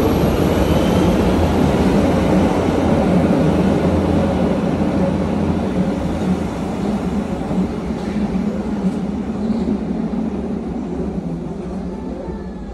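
Steady low rumble and noise of a moving vehicle, growing gradually quieter over the last few seconds.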